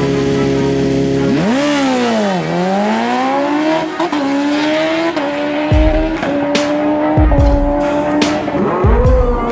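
Two drag-racing sportbikes held at steady revs on the start line, then launching about a second and a half in; the engine note climbs in steps through several quick gear shifts as the bikes run away down the strip.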